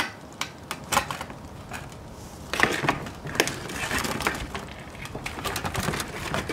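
Sharp clicks, crackles and rustles of nylon netting and a crab's shell being handled as a crab is worked free from a tangled wire-frame crab trap. The crackling is sparse at first, then busier about two and a half seconds in.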